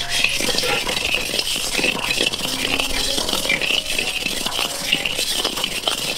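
Paddy rice dry-roasting in a hot iron wok over a wood fire. The grains give a dense, steady crackling and rattling as a long-handled ladle stirs and scrapes them around the pan.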